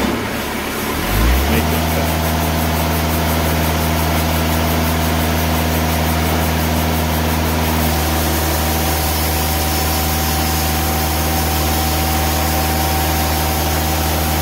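TimberKing band sawmill engine running steadily after the blade clutch engages about a second in, the band blade spinning up and then cutting through a log as the saw head feeds along it. The blade is near the end of its life but still cutting okay.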